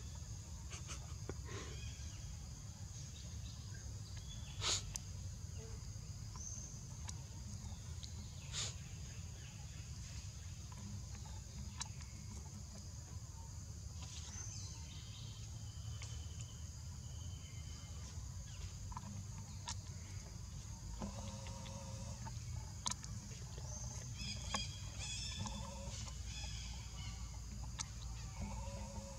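Quiet forest ambience: a steady high drone of insects over a low rumble, with a few sharp clicks and several short chirping calls in the second half.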